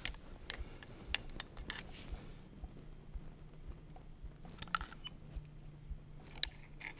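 Faint, scattered metallic clicks and scrapes of a screwdriver prying between the brake pads of a removed motorcycle front brake caliper, spreading the pads apart to make room for new ones.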